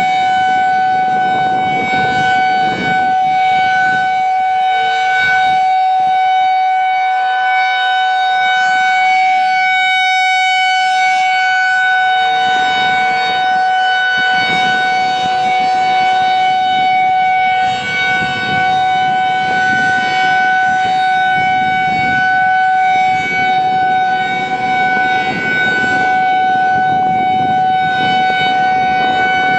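Federal Signal 2001-SRNB electromechanical outdoor warning siren sounding a loud, steady tone that holds one pitch without rising or falling.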